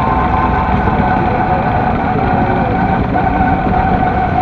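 Honda Shadow's V-twin engine running steadily at riding speed, heard from a camera mounted low on the bike, mixed with a dense rush of wind and road noise.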